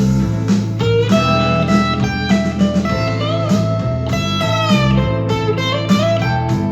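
Harley Benton TE-62CC SFG Telecaster-style electric guitar, played through an amp, picking lead lines with string bends that glide in pitch. Underneath runs a steady rhythm with a beat about every half second.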